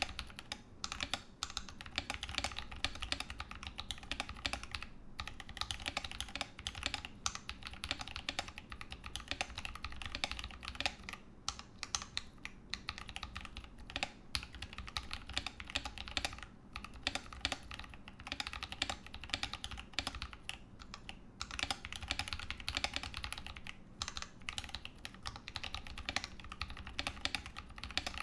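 Continuous typing on a Ramaworks M60-A custom mechanical keyboard with tactile Holy Panda switches, GMK Pristine keycaps and an internal weight with Sorbothane damping: a dense run of key clacks with a few brief pauses.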